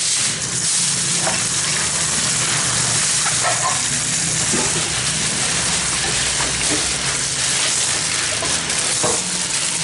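Kitchen tap running steadily into a stainless-steel sink, a constant hiss of water, with a few short crackles of aluminium foil being torn and handled.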